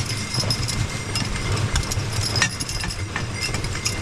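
Harness hardware on a pair of Clydesdales pulling a sled, clinking and jingling, with scattered hoof steps over a steady low rumble from the moving sled.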